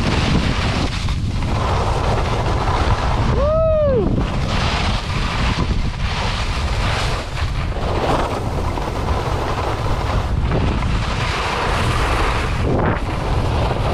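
Wind buffeting a skier's camera microphone at speed, with the hiss of skis scraping and carving groomed snow swelling and fading through the turns. About four seconds in, a short tone rises and falls.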